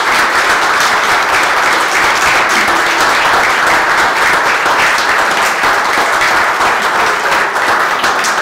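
Audience applauding, a roomful of people clapping steadily.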